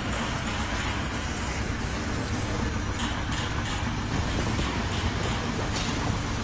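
Steady machinery noise with a low engine rumble.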